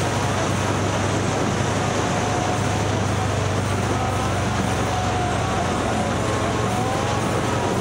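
Motor vehicle under way: a steady engine hum and road noise with a faint wavering whine, unchanging throughout.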